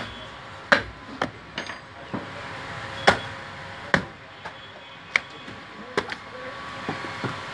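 Butcher's cleaver chopping into a cow's head on a wooden chopping block: a string of sharp, irregular chops, roughly one or two a second, the loudest about three seconds in.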